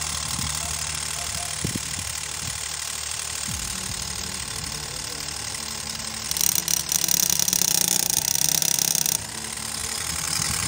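Small DC motor spinning a homemade propeller blade, a steady rattling whir with a faint high whine. About six seconds in, a louder, hissier buzz joins for about three seconds, then drops away.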